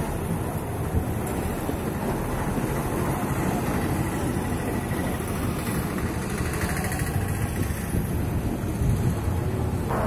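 Steady low engine and road-traffic noise from buses, with a motorcycle passing near the start.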